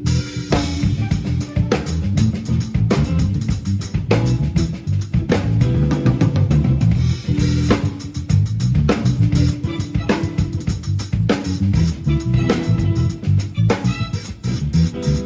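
Live band playing: drum kit with kick and snare keeping a steady beat under electric guitar and bass.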